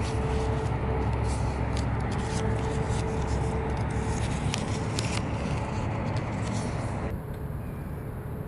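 Paper being creased and folded by hand on a stone ledge: scattered small crinkles and clicks over a steady low outdoor rumble, which drops somewhat about seven seconds in.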